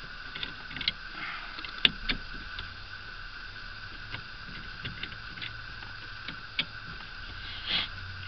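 Small metal screws being backed out of a Toyota turn-signal combination switch with a screwdriver: scattered light clicks and scrapes, with a sharper click about two seconds in and a short scrape near the end. A faint steady high hum runs underneath.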